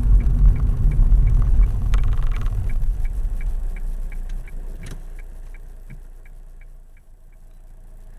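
Car engine and road noise heard from inside the cabin, fading as the car slows and pulls in to stop. The turn indicator clicks steadily at about three ticks a second and stops near the end. There is a short rattle about two seconds in.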